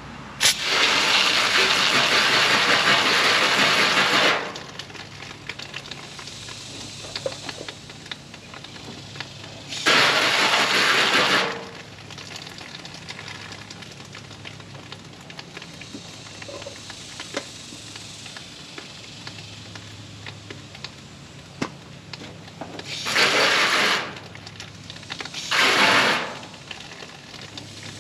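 Aerosol can of wasp spray hissing in four bursts: a long spray of about four seconds at the start, another of about a second and a half near the middle, and two short ones close together near the end.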